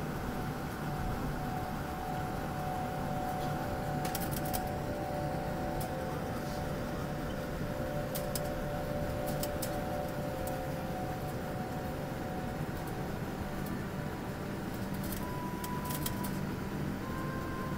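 Airliner cabin noise while taxiing: a steady rumble of the jet engines at idle with a few whining tones, one fading away and a higher one coming in later. Scattered light clicks sound throughout.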